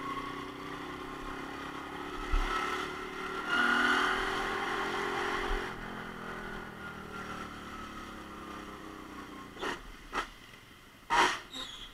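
Romet Ogar Caffe 125 motorcycle engine running under way. The revs rise to their loudest about four seconds in, then fall away as it slows. Several sharp knocks come near the end.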